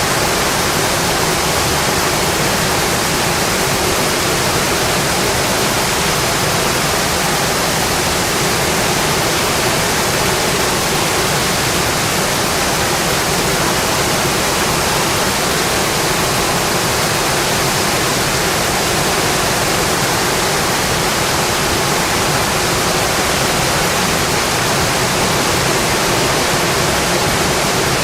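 Steady, dense rainfall: an even hiss of rain with no distinct drops or other sounds standing out.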